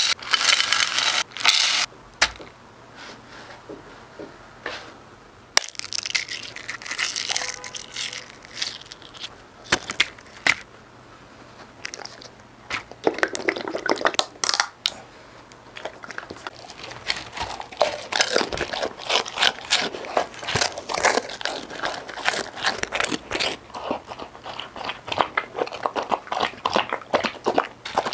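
Dry dog kibble pouring from a plastic scoop into a glass dish, rattling for about two seconds at the start. Then come scattered clicks and crinkles of food being added, growing into a dense run of small crunching clicks in the second half.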